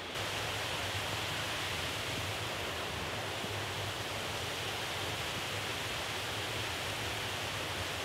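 Small mountain-stream waterfall rushing steadily, a constant even wash of falling water.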